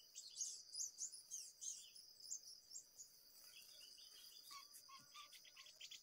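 Faint chirps and short calls of small birds over a steady high insect drone, with a quick run of short notes a little past the middle.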